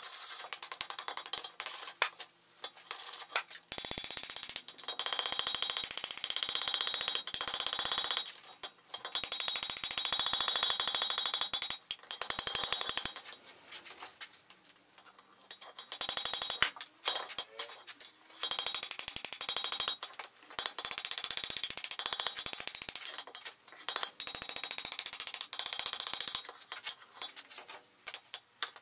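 Hand hammer striking a red-hot steel bar on an anvil in quick runs of blows with short pauses between them, the anvil ringing with each strike.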